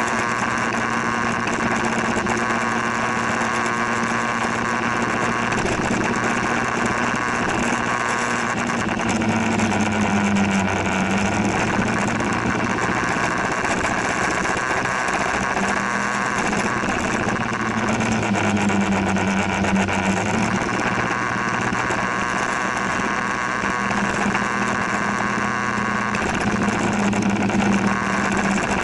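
Motor scooter's small engine running steadily while riding. Its note dips and swells twice, about a third of the way in and again about two-thirds in, as the speed eases and picks back up.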